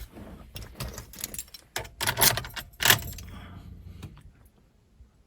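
Car keys jangling and clicking as the ignition key is handled, with several rattles over the first three seconds and then quiet. No engine or starter cranking is heard, which fits a car that will not turn over once the wire is removed.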